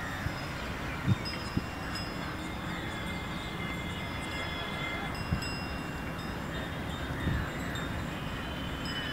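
Faint whine of a foam RC plane's electric motor and propeller flying high overhead: a few steady high tones, some sliding slightly in pitch. Wind buffets the microphone underneath, with a few low bumps.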